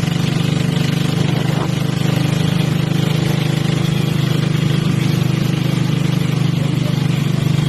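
Small engine of a rice reaper machine running steadily, a loud even hum with a rapid firing pulse.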